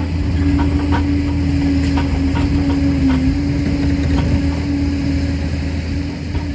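Liebherr PR 746 crawler dozer running steadily with a low rumble and a held whine that dips slightly about three seconds in, with scattered light clanks throughout.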